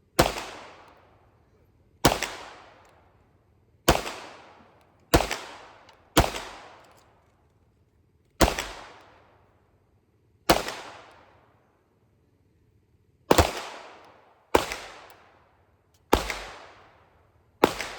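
A 9mm Canik METE SFT Pro pistol fired in slow, deliberate single shots: about eleven shots, one to three seconds apart, each followed by a short echoing tail.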